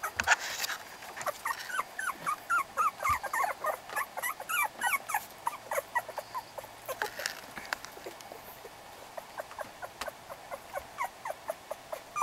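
Young beagle puppies squeaking and whimpering, many short high-pitched cries a second, overlapping. There are brief rustles near the start and about seven seconds in.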